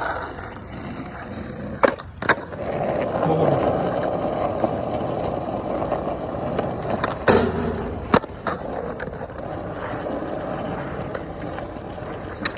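Skateboard rolling over skatepark ramps, with sharp clacks of the board: two about two seconds in, a loud slam about seven seconds in, and two more just after.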